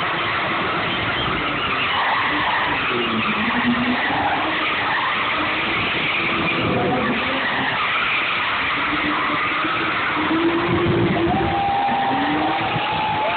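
Drift car's engine revving up and down while its tyres screech in long slides, with a steady higher squeal near the end.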